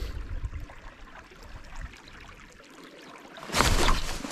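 Faint water and handling rumble, then about three and a half seconds in a loud, scratchy rustle lasting under a second as a jacket sleeve sweeps across the camera's microphone.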